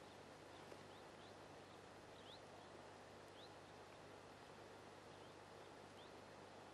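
Near silence: faint outdoor ambience with a steady hiss and low hum, and faint short high chirps of a small bird, about one a second.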